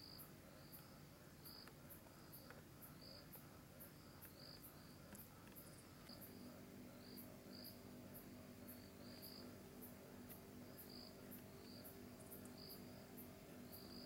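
Faint night-time insect chorus of crickets: short high chirps repeated irregularly, one or two a second, over a fainter, very high ticking about twice a second. A low steady hum comes in about six seconds in.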